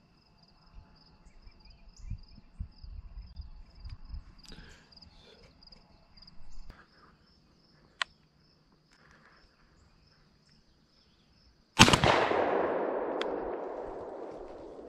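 A single shotgun blast about twelve seconds in, its echo rolling away over about three seconds. Before it, insects chirp steadily in a fast pulsing trill over a low rumble of wind and handling on the microphone.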